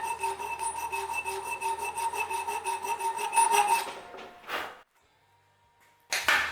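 Hand file rasping on a sheet-steel part in quick, even strokes, the metal ringing with each stroke, as a square hole is opened up to turn the part into alignment. The filing stops about four seconds in, and a couple of short scrapes follow.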